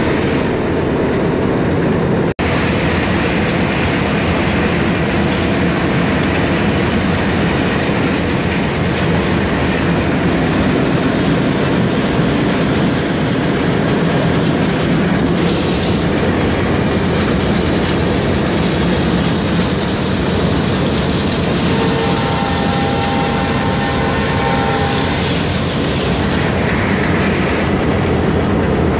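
Cab noise of an Indian Railways diesel locomotive running at speed: a loud, steady din of the engine and the wheels on the track. The sound cuts out for a moment about two seconds in. A thin, steady high tone sounds for about three seconds near the end.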